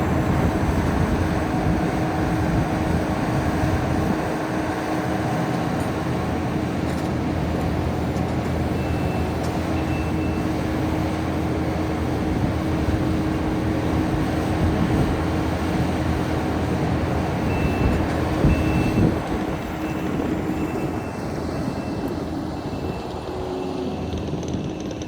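Heavy diesel equipment running steadily, with short high beeps now and then.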